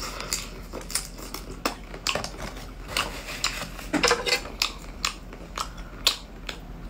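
Close-miked chewing of a grilled shrimp: a run of short wet clicks and crunches, a few each second. Near the end a metal fork clinks against the plate.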